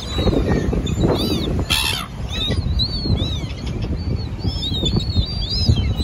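Silver gulls calling: many short, high cries that rise and fall, repeating all through, with one louder harsh burst a little under two seconds in, over a low rumble.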